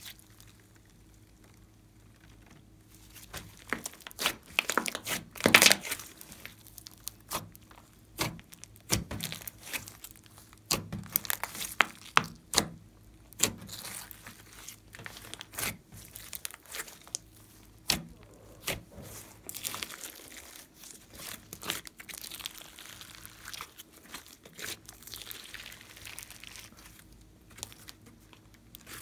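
Glossy slime worked by hand, pressed, stretched and folded, giving sticky crackling and popping. It starts a few seconds in as many sharp pops, loudest at about five to six seconds, then goes on as a finer crackle.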